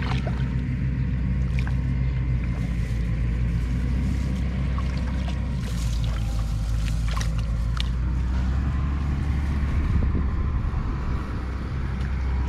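A small engine drones steadily and low. Over it come scattered light splashes and clicks as a woven bamboo basket trap is pressed down and lifted in shallow muddy water.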